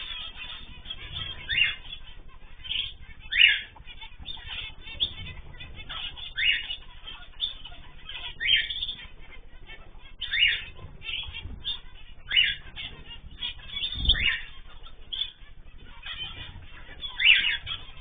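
Zebra finches giving short, nasal honking calls, one every second or two, with fluttering of small wings. A soft low thump about three-quarters of the way through.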